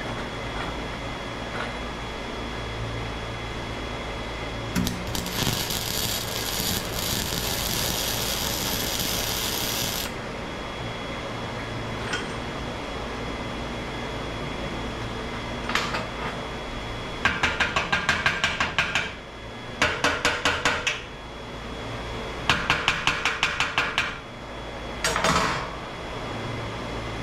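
MIG welder arc crackling on the steel of an exhaust pipe: one continuous run of about five seconds, then, from about two thirds of the way in, several short bursts of rapid, evenly spaced pops as the weld is laid in stitches.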